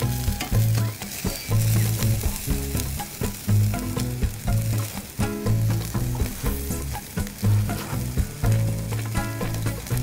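Chicken-and-leek yakitori skewers sizzling and crackling over the blue flame of a tabletop gas grill, with dripping fat popping in many short snaps.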